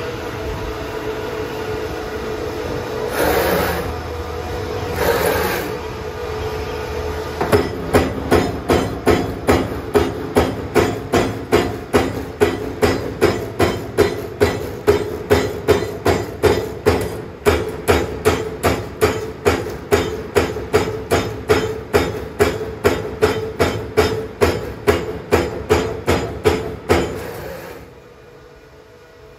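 CNC electric servo turret punch press: its drives hum with a steady whine, with two short hisses a few seconds in. Then the punch strikes through the sheet metal in a fast, regular run of sharp strokes, about two a second, for some twenty seconds, stopping near the end and leaving only the quieter hum.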